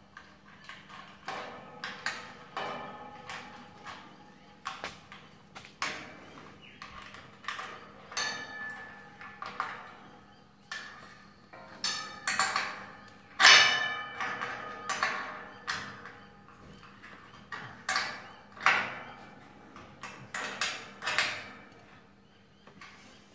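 Steel stable panel parts clanking as they are handled and fitted: irregular sharp metal knocks, some ringing briefly, the loudest about halfway through.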